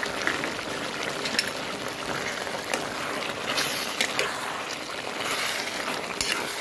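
Thick chicken curry bubbling and sizzling in a pan as a spatula stirs it, with a few knocks of the spatula against the pan.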